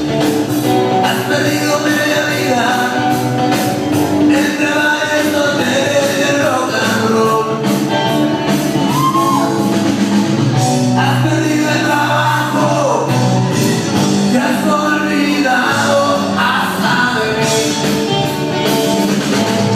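Loud rock song with a lead singer, played by a DJ over a club's sound system.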